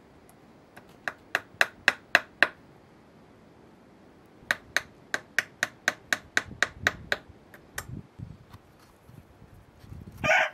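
Hammer striking nails into a wooden board to fix a trout to it: a run of five sharp strikes, then after a pause a longer run of about a dozen, at about four strikes a second. A brief, louder noise comes near the end.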